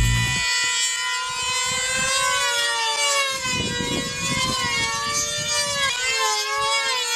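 Two F2D control-line combat models' small glow engines running flat out in a high whine. The pitch rises and falls continuously as the planes circle the pilots, and the two engines' notes weave around each other.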